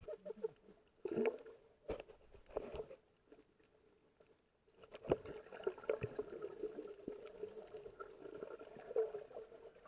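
Muffled underwater sound through a submerged camera housing: scattered knocks and clicks with bubbling from a freediver's exhaled air. It goes nearly quiet about three seconds in, then the bubbling and clicking pick up again about five seconds in.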